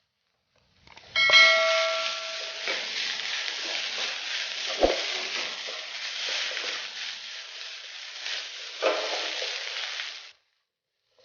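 Cooked basmati rice being stir-fried in a hot metal pan: a steady sizzle. It opens with a loud ringing clang of the spatula against the pan, with a sharp knock partway through and another clang near the end. The sizzle cuts off abruptly shortly before the end.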